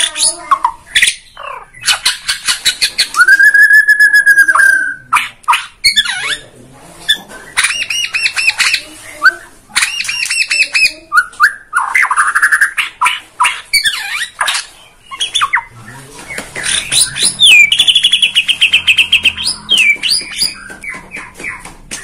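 White-rumped shama singing a loud, varied song: rapid rattling trills and clicks mixed with clear whistles, with one long held whistle about three seconds in and a run of fast repeated notes near the end.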